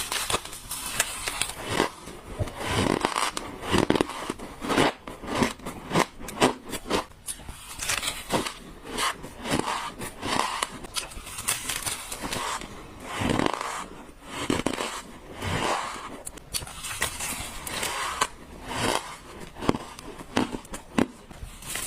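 Biting and crunching white ice close to the microphone: a steady run of sharp, crackling crunches, one bite after another with no pause.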